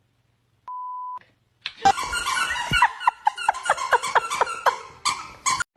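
A short steady electronic beep, then a loud run of high squeaks, about three a second, over a rough hiss.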